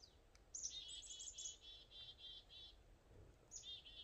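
A songbird singing faintly: a quick run of high chirps, about five a second, that lasts about two seconds, then a second run starting near the end.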